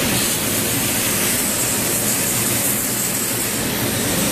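Steady hiss of a water jet from a spray wand blasting into a perforated metal strainer basket and splashing onto the floor drain below, washing debris out of a chiller's water strainer.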